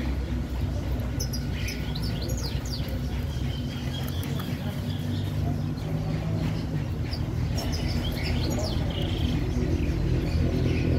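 Short, high chirps from caged quails, in clusters about a second in and again around seven to nine seconds, over a steady low rumble.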